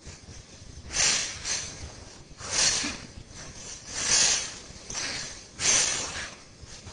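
A man's sharp, hissing exhalations, four in an even rhythm about one every one and a half seconds: breathing paced to each rep of one-arm kettlebell lifts from the rack to overhead.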